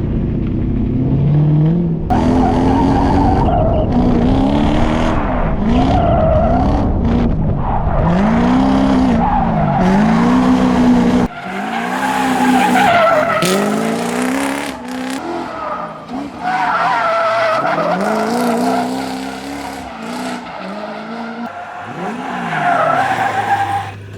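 V8-swapped Mazda Miata (Toyota 1UZ V8) drifting: the engine revs climb and fall again and again, over tyres squealing and skidding on the tarmac.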